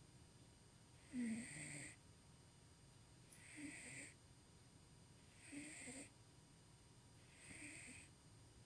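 A sleeping domestic cat snoring: four snores about two seconds apart, the first about a second in and the loudest.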